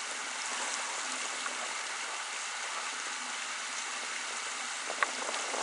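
Steady rushing of a shallow river riffle, with a single sharp tap about five seconds in.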